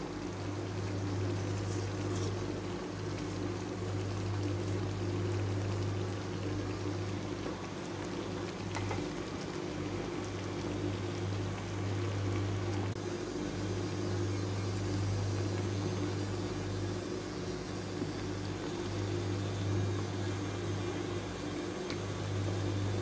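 A creamy chicken stew simmering in a pan, its thick sauce bubbling and popping softly over a steady low hum.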